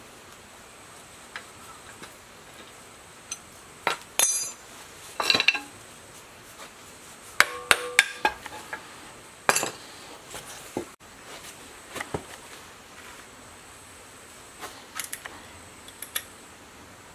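Hand tools and metal parts clinking and knocking together at irregular intervals, a few of the knocks ringing briefly, busiest between about four and ten seconds in.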